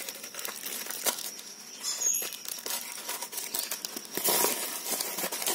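Taped brown paper and cardboard package wrapping being handled and pulled open by hand: irregular crinkling and crackling, louder about four seconds in.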